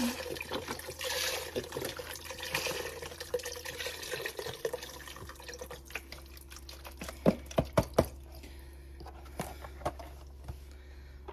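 Chicken stock poured from a container into a soup pot, with liquid splashing for the first four seconds or so. After that come several sharp knocks as the container and utensils are handled.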